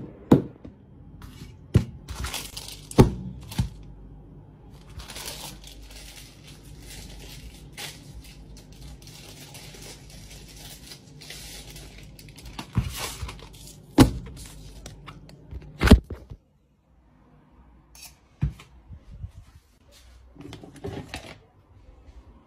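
Kitchen handling sounds: a series of sharp knocks and clatters of dishes and packaging, with rustling in between. After a brief near-silent break, eggs are cracked into a glass bowl.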